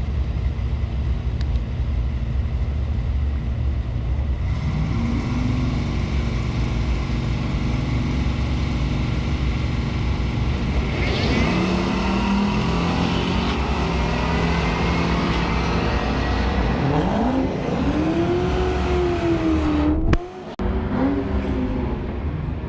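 Drag-racing cars' engines running at the strip, with steady engine tones over a low rumble; from about halfway the pitch climbs and falls in long glides as cars rev and accelerate away. A brief drop-out comes near the end.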